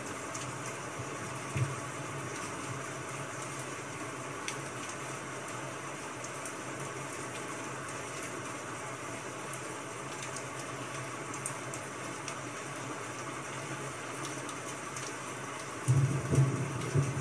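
Steady hiss of rain, with faint scattered ticks. About a second and a half in there is a soft knock, and near the end a spiral-bound notebook is handled against the desk, with a cluster of louder thumps and rustles.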